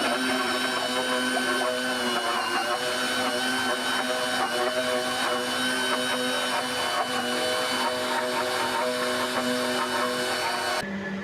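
A small electric motor running steadily, a hum of several fixed tones that drops to a lower, quieter hum near the end.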